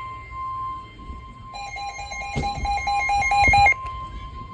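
Weather radio's Emergency Alert System warning alarm, a long steady single-pitch tone, signalling a severe thunderstorm warning about to be read. From about a second and a half in to near four seconds, a rapid beeping of about five beeps a second sounds over it and is the loudest part.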